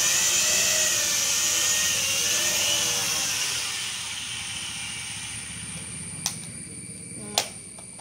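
Small toy quadcopter's propeller motors whining at a high pitch while the drone rests on the ground, then winding down and fading out over a couple of seconds. Two sharp clicks follow near the end.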